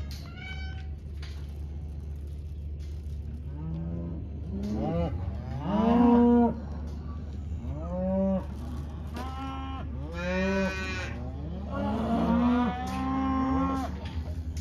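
A herd of black beef cows and calves in pens bawling over and over, several calls overlapping, the loudest about six seconds in.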